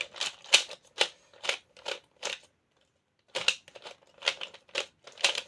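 DianSheng Galaxy series 3x3 speed cube being turned fast, a run of sharp plastic clacks about two to three a second, with a short pause about two and a half seconds in.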